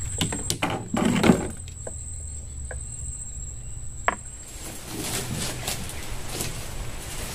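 An insect's steady high-pitched buzz, with knocks and clatter of gear against the wooden boat in the first second and a half and one sharp click about four seconds in. The buzz stops about halfway through and a rustle of leaves follows as palm fronds are grabbed.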